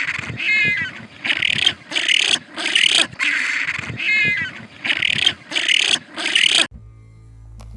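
An animal giving a rapid series of about a dozen harsh, shrill calls, each about half a second long. They stop abruptly near the end, and a low steady hum follows.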